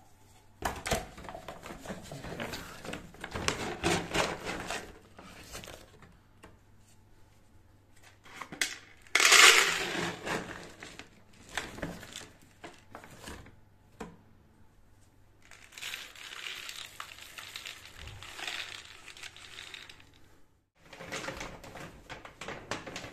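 A plastic bag of dry cat food rustling and crinkling as it is handled, with dry kibble rattling as a hand reaches into it. The sound comes in several bouts with short pauses, loudest about nine seconds in.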